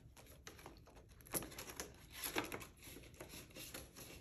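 Paper banknotes rustling and a clear plastic binder envelope crinkling as a few bills are handled and slid into the pocket. Soft scattered rustles and taps, two slightly louder ones about one and a half and two and a half seconds in.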